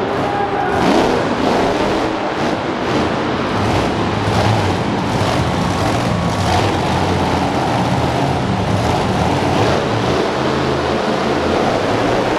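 Monster truck's engine running hard and revving as the truck drives over a pile of junk cars. Crunching metal comes near the start as the truck lands on the cars.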